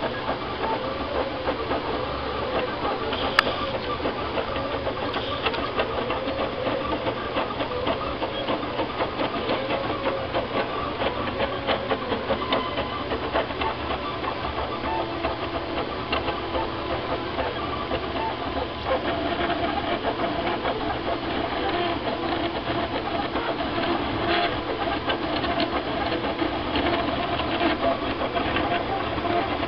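TrinityLabs Aluminatus 3D printer at work: its stepper motors whine and buzz in quickly changing pitches as the print head moves, with a fast clicking running through and a steady low hum underneath. There is one sharp click about three and a half seconds in.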